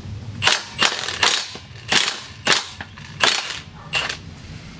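Milwaukee Fuel cordless impact wrench hammering in about seven short trigger bursts on a pitbike's rear axle nut, loosening it.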